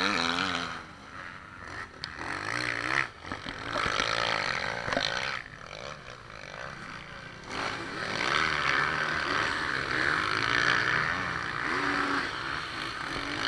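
Motocross dirt bike engines revving on a sand track, the pitch rising and falling again and again as riders open and close the throttle through the corners.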